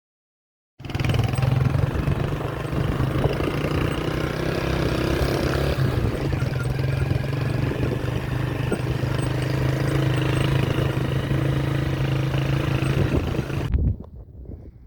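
A motor vehicle's engine running steadily with a low, even hum, starting abruptly about a second in and cutting off near the end.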